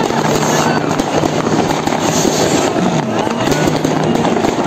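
Fireworks going off all around in dense, continuous crackling and popping, with a low steady tone underneath.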